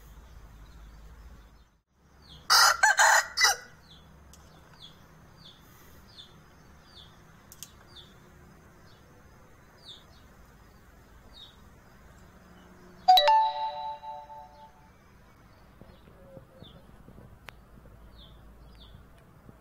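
Aseel rooster crowing once, short and hoarse, about two and a half seconds in. Around two-thirds of the way through there is a sharp clang that rings on and fades over a second or so, the loudest moment. Faint short chirps repeat in the background.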